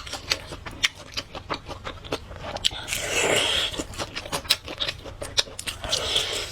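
Close-miked eating of spicy fried noodles and fried food: chewing with many quick wet clicks, smacks and crunches, and a longer, louder noisy stretch about three seconds in.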